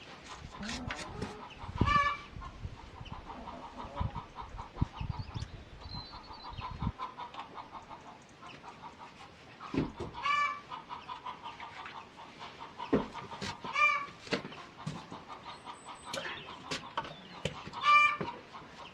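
Chickens clucking in short runs, with a louder squawking call every few seconds, among scattered light clicks and knocks.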